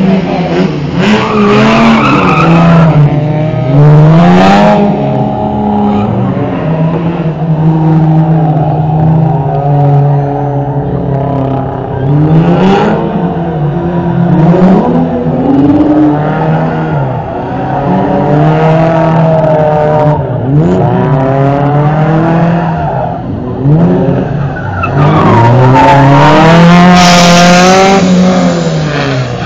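Small hatchback rally car's engine revving hard, rising and falling again and again as it is driven between cones, with tyres squealing. The squeal is loudest near the end.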